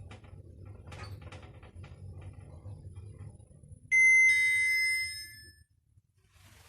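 Mogilevliftmash passenger lift car travelling with a low hum and light clicks, then a loud two-tone ding-dong arrival chime about four seconds in, marking arrival at the floor. The chime rings out over about a second and a half as the hum dies away.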